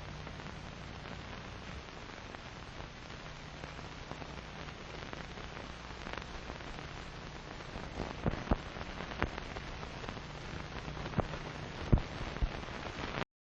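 Steady hiss with a low hum and scattered crackles from an old film soundtrack with nothing else on it, a few sharp pops in the second half, then an abrupt cut-off near the end.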